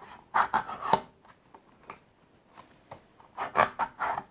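Hard plastic parts rubbing and clicking as a Han Solo action figure is worked into the round chamber of a Hasbro Carbon-Freezing Chamber playset, in two short rasping bursts about three seconds apart.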